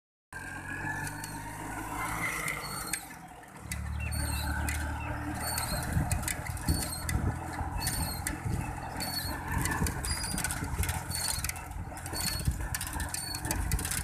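Tractor diesel engine running steadily while it tows a tined cultivator along a paved road. The drone grows louder about four seconds in, and metallic clattering with repeated short high squeaks comes from the rattling implement and hitch.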